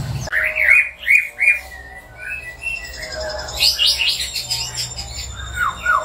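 White-rumped shama singing in a cage: a string of varied whistled phrases, with a quick run of higher notes past the middle and falling whistles near the end.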